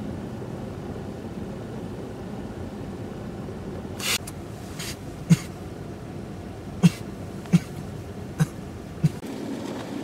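Steady low rumble of running vehicles and blizzard wind. From about four seconds in it is broken by about seven short, sharp sounds, spaced irregularly, the loudest a little past five and near seven seconds.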